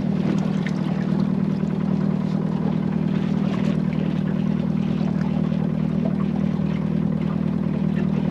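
A boat's motor running steadily, a constant low hum with no change in speed.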